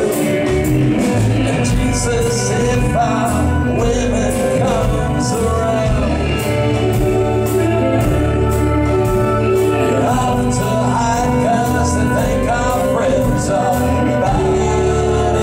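Live band playing a song, with male vocals sung into microphones over drums and bass, heard from the audience floor of a concert hall.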